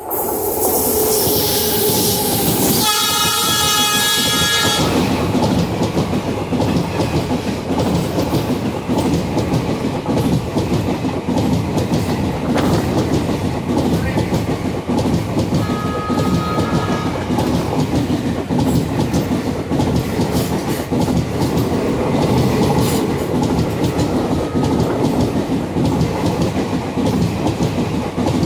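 An express train hauled by an electric locomotive passes close by on the adjacent track, its horn sounding for about two seconds, three seconds in. The coaches then rush past with a steady rumble and rhythmic wheel clatter, and a shorter, fainter horn note comes about halfway through.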